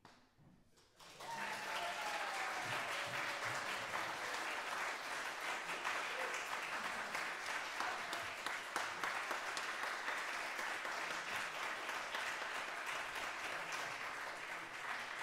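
Audience applauding after a performance, starting suddenly about a second in and holding steady as a dense patter of many hands clapping.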